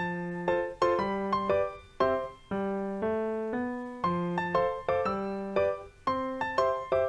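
Background keyboard music in a piano sound: a light melody of separate notes that each strike and fade, about two a second.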